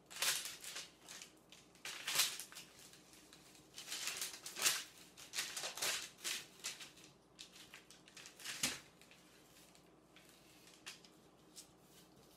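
Knife and metal spatula scraping on parchment paper while cutting and lifting cookie dough, with paper crinkling: irregular short scrapes, frequent at first and sparser in the last few seconds.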